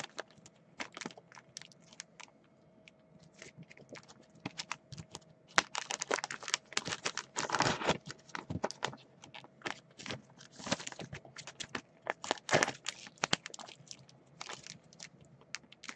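Trading cards in plastic sleeves and team bags being handled: scattered light clicks and plastic crinkling, with a few longer rustles about six, eight and eleven seconds in.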